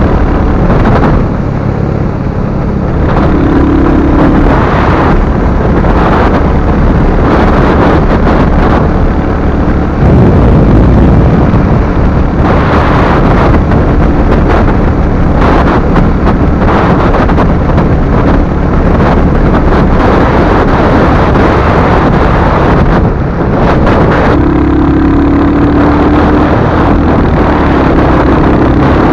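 Royal Enfield Hunter 350's single-cylinder engine running steadily while riding, with heavy wind rushing over the microphone.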